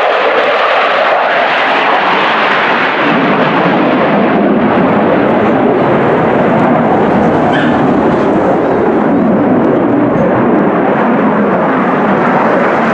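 Belgian F-16 fighter jet's single turbofan engine, loud and continuous jet noise of a display pass, growing deeper and fuller about three seconds in.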